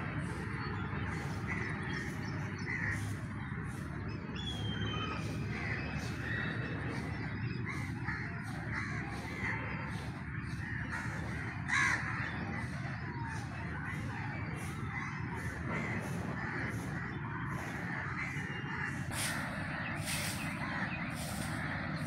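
Crows cawing repeatedly, with one louder caw about halfway through, among other short bird calls over a steady low background rumble.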